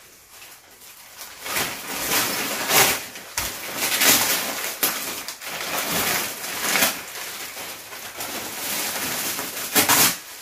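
Gift wrapping paper and plastic packaging crinkling and tearing in irregular rustles as a large present is unwrapped, starting about a second in.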